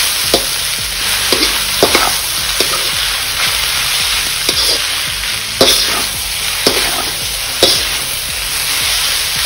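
Noodles and vegetables sizzling in a wok on high heat while being stir-fried with a metal spatula, which knocks and scrapes against the pan about once a second over a steady hiss.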